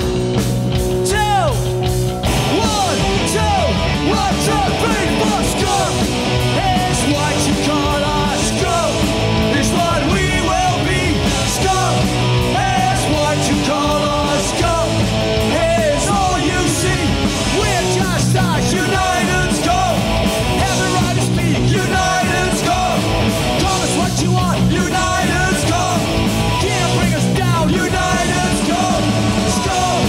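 Punk rock band playing live at full volume, with shouted vocals over distorted band music; the drums and cymbals come in fully about two seconds in.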